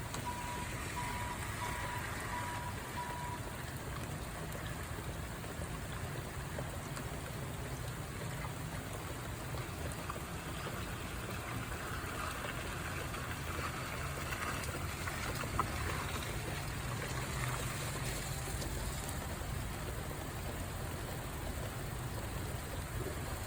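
Steady rain falling, with a low rumble underneath. A faint string of short, high beeps sounds in the first three seconds.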